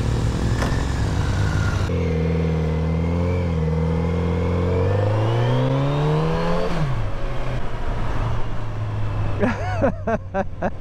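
Motorcycle engine pulling away: it runs steadily, then about two seconds in the revs climb for about five seconds, drop sharply at a gear change and settle to steady running. A brief voice comes in near the end.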